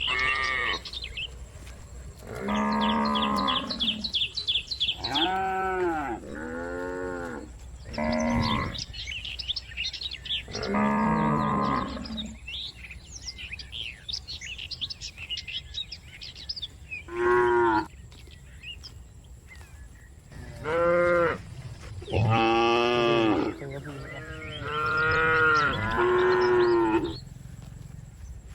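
Cattle mooing repeatedly: about ten drawn-out calls of one to two seconds each, with short pauses between them.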